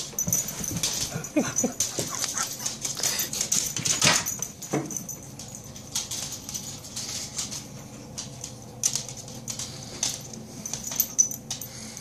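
Beagle giving a few short whining cries, among scattered clicks and scuffles.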